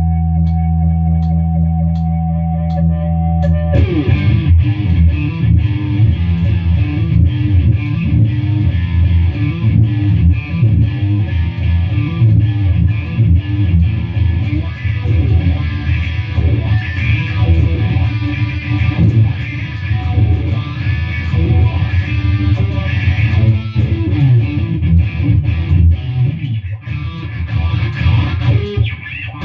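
Stratocaster-style electric guitar played through an amplifier. A held chord rings for the first few seconds, then about four seconds in busier playing of quick, changing notes starts and keeps going, dipping briefly near the end.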